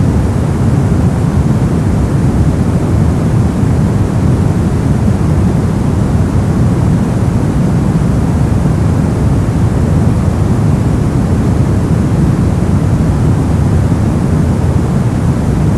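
Brown noise: a steady, deep rushing hiss, strongest in the low end, with no change or rhythm.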